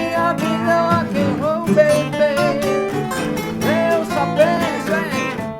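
Rock band playing a blues-rock song, with a guitar lead bending notes over a steady bass line and drums.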